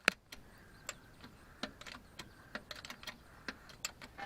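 Faint, scattered light clicks and ticks at irregular spacing, with a sharper pair of clicks near the start, from a hydraulic jack being worked to lift a pickup truck.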